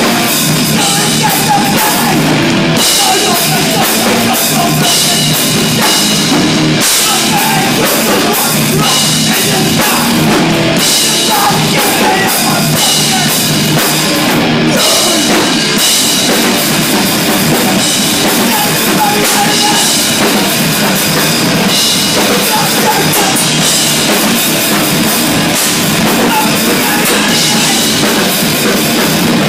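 A New York hardcore punk band playing live and loud: distorted electric guitar and a drum kit driving steadily, with vocals over the top.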